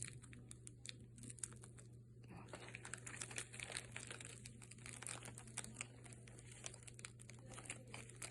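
Plastic bag crinkling as it is handled, with small irregular clicks and crackles that get busier about two seconds in, while white glitter is added to it.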